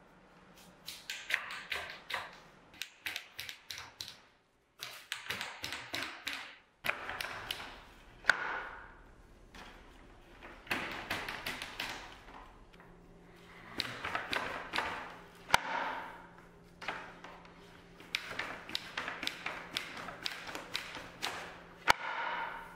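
Wooden flax brake worked by hand on retted flax: bouts of quick wooden knocks and clacks as the hinged upper blades are slammed down into the lower ones, breaking the stalks, with short pauses between bouts. This is the breaking stage of turning retted flax into linen fibre.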